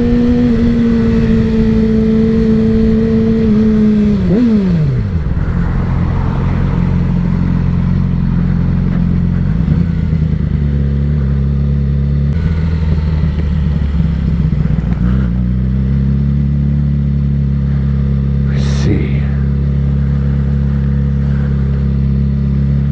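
Motorcycle engine holding steady revs, then dropping sharply in pitch about four seconds in as the bike slows, and running low and steady after that at low revs. A brief sharp sound cuts in once near the end.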